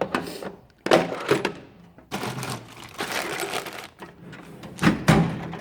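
Metal tool box drawers being shut and pulled open: a sharp knock about a second in, a couple of seconds of sliding rumble, then two clunks near the end.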